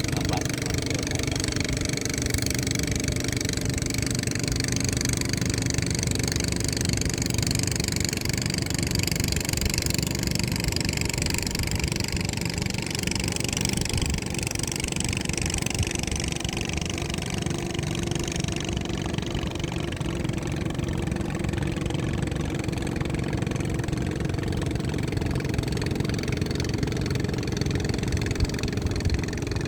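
A fishing boat's engine running steadily at idle, a low even drone. A higher hiss above it dies down about two-thirds of the way in.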